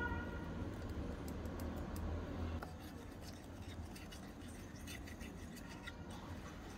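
Small spoon stirring sugar into a wet mixture in a tiny steel bowl: light, irregular scratching and clicking of the spoon against the bowl, over a low steady hum.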